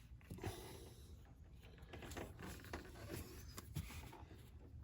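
Faint, scattered small clicks and rubbing from hands working dielectric grease onto an ignition coil's plastic electrical connector.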